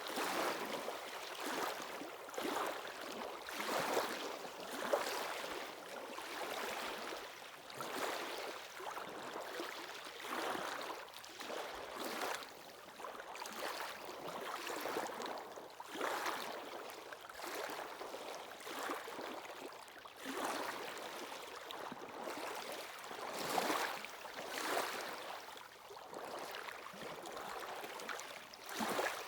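Sea waves washing onto the shore, one rushing surge after another every second or two without pause.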